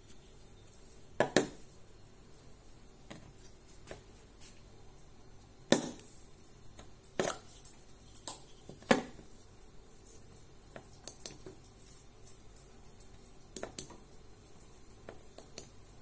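Scattered sharp clicks and knocks from a mini LED flashlight being handled: its push-button pressed and its body knocking against a stainless-steel fridge door as it is set there, with a loud double knock about a second in.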